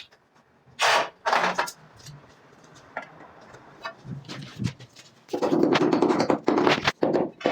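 Floor tiling work: two short scrapes about a second in, a few sharp clicks, then from about two-thirds of the way through a dense run of knocks and scraping as tools work on the tiles and mortar.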